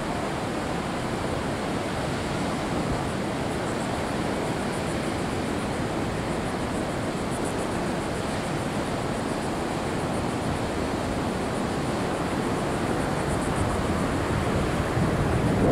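Ocean surf breaking on the beach in a steady wash, with wind on the microphone.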